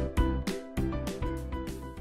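Background music with a steady beat, getting quieter toward the end.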